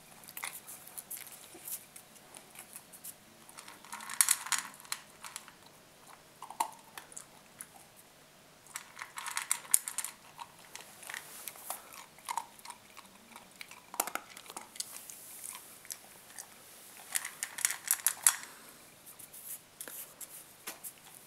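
A collie crunching and chewing dry kibble from a stainless steel bowl, in several bouts of crackling crunches with quieter pauses between them.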